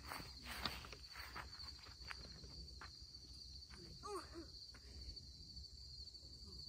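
A faint, steady chorus of crickets chirping. A few light knocks come in the first few seconds, and a short voice-like call about four seconds in.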